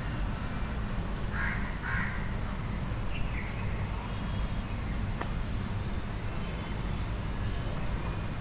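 A crow cawing twice in quick succession about a second and a half in, over a steady low street rumble.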